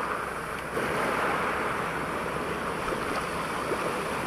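Small waves washing over the shallows at the shoreline, a steady rushing hiss, with some wind on the microphone.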